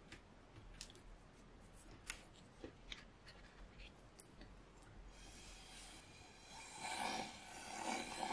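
Light clicks and taps of paper sheets and tools being handled, then from about five seconds in, a steady rush of breath blown through a drinking straw to push wet liquid paint across Yupo paper, growing louder in two strong blows near the end.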